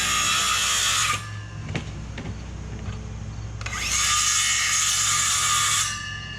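Power drill run in two bursts of a second or two each while framing with wood, with a few sharp clicks between the bursts. A steady low engine hum runs underneath.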